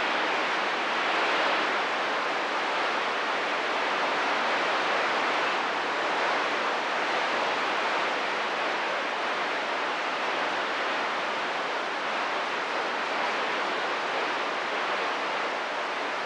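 Steady hiss of radio static from a CB radio receiver between transmissions.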